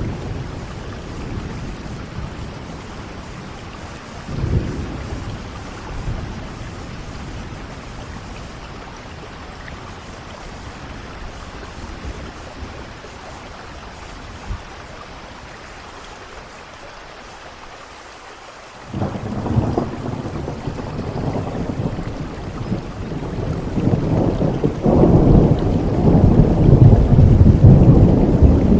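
Steady rain falling during a thunderstorm, with brief low rumbles of thunder early on. About two-thirds of the way through a loud thunderclap breaks in suddenly and rolls on, growing louder near the end.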